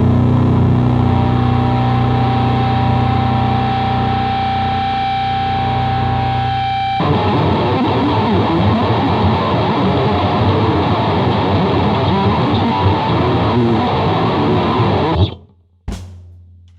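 Heavy electric guitar and bass played through a Mantic Vitriol distortion pedal: a held distorted chord for about seven seconds, then busier riffing. It stops suddenly near the end, followed by one short thump and a low amp hum dying away.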